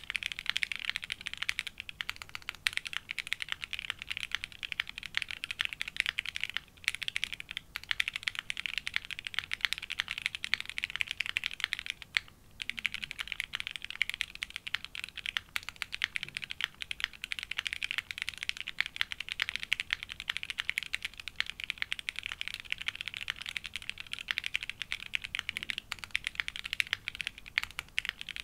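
Fast, continuous typing on a Geonworks W1-AT mechanical keyboard built plateless, with lubed SP-Star Meteor White switches and GMK Camping keycaps: a dense stream of keystrokes with a short pause about twelve seconds in.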